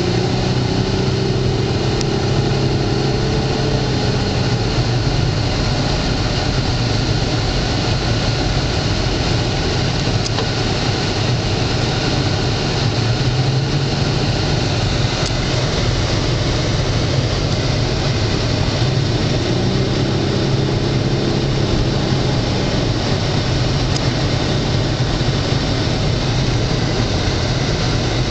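Dodge Charger 3.5-litre V6 heard from inside the cabin while cruising: steady engine drone under road and wind noise. A humming engine note swells twice, near the start and again about twenty seconds in.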